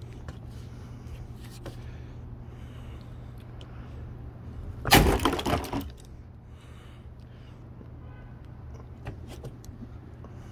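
A sledgehammer blow smashing into an old coffee machine about five seconds in: one loud crash with a brief clatter of breaking pieces, under a second long. A steady low hum runs underneath.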